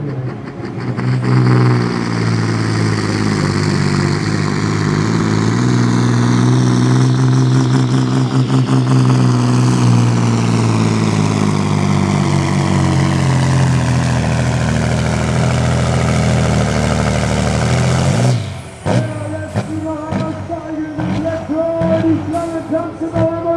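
Competition pulling truck's diesel engine running flat out while towing the brake sled, with a high whine that slowly falls in pitch, for about eighteen seconds before it cuts off suddenly.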